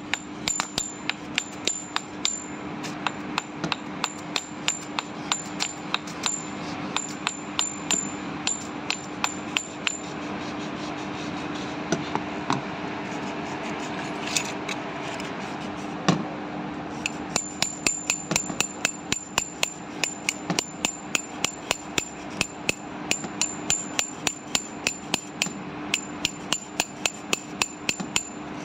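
Quick metal-on-metal tapping, about two strikes a second, each with a bright ring, as a hand tool knocks on the ball bearing at the end of an HVAC condenser fan motor's rotor shaft during a bearing replacement. Past the middle the tapping stops for several seconds, then one heavier knock, and the tapping resumes.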